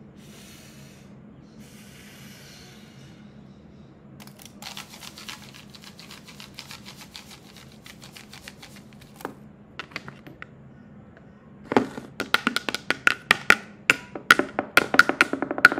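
Homemade household-object instruments played as story sound effects: two short swishes, then several seconds of crackly rustling, a few separate clicks, and near the end a fast run of loud taps on something hard that rings slightly.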